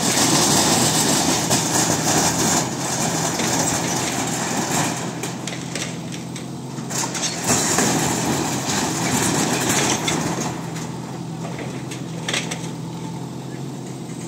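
Backhoe loader's diesel engine running steadily, with occasional crunches and clatters of corrugated iron roofing sheets being pushed and crumpled.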